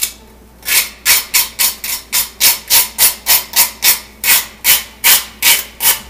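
Butter knife scraping the burnt crust off a slice of toast in quick rasping strokes, about three a second, starting after a brief pause. The toast has sat and cooled, so it is hard and the scraping sounds hard.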